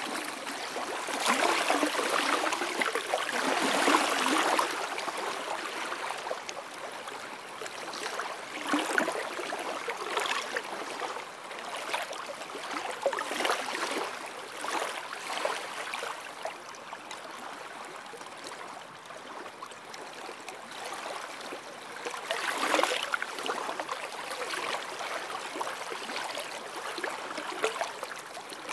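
Small lake waves lapping and washing onto a sandy shore, a steady wash that swells in louder surges every several seconds, the strongest near the start and about two-thirds through.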